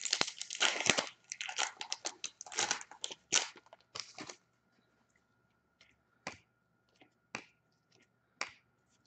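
A hockey card pack's wrapper being torn open and crinkled, then the cards inside flicked through one at a time, a short snap about every second.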